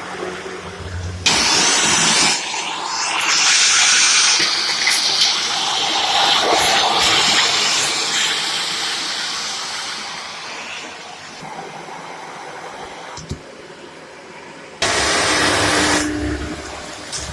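Shark AZ910UK vacuum cleaner running, its suction hiss rising and falling as the head moves. The sound starts abruptly about a second in, goes quieter for a few seconds, then jumps back up loudly near the end.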